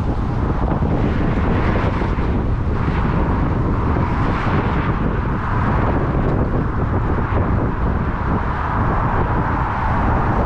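Wind buffeting the microphone: a steady rumble with a rushing hiss above it and no breaks.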